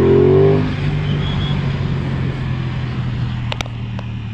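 Motorcycle engine rising briefly in revs, then running at a steady lower pitch and slowly getting quieter as the bike rides on. A few short clicks come near the end.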